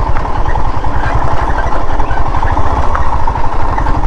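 Motorcycle engine running steadily under the rider, heard close up as a fast, even beat while the bike rides along a rough dirt road.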